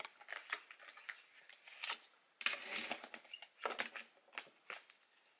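A deck of tarot cards being shuffled and handled by hand: a run of quiet card clicks and rustles, with a longer stretch of shuffling about two and a half seconds in.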